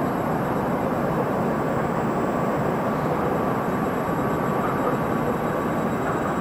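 Freight train behind a 2ES6 'Sinara' electric locomotive rolling past: a steady, even noise of wheels on the rails, with a faint whine in the middle.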